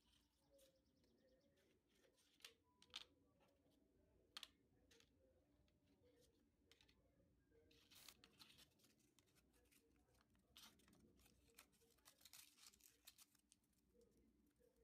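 Faint rustling and crinkling of origami paper being folded and creased by hand. A few sharp clicks come in the first few seconds, and longer rustles come around the middle and again near the end.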